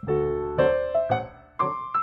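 Background piano music: notes and chords struck at a moderate pace, each one ringing and dying away.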